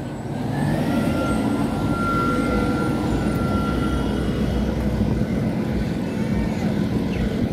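City street traffic: a steady low rumble of truck and car engines, with a thin steady whine from about half a second to four seconds in.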